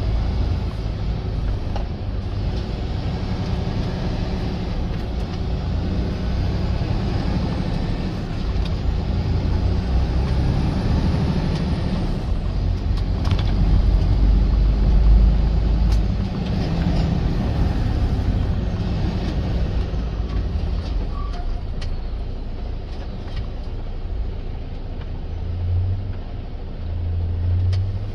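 Semi truck's diesel engine and road noise, a steady low rumble that swells for a few seconds about halfway through.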